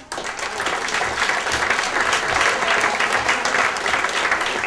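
Crowd of people applauding: dense clapping that breaks out suddenly and keeps going.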